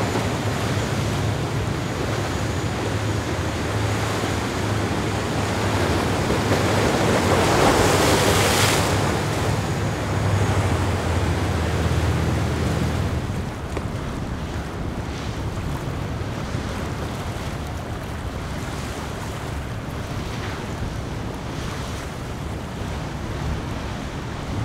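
Viking 80 Convertible sportfishing yacht running at speed through waves: rushing water and spray from the hull, wind on the microphone and a low engine rumble. The rushing swells to a peak about eight seconds in. About thirteen seconds in, the level drops and the rumble fades, leaving quieter wind and water noise.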